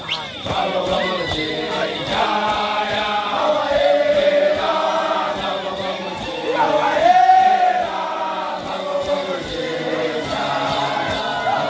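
A large group of voices singing and chanting together in a traditional dance song, swelling loudest about seven seconds in.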